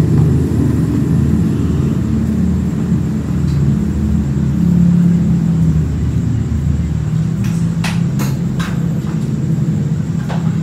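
A steady low engine-like rumble, as of a motor vehicle running, with a few light sharp clicks in the last few seconds.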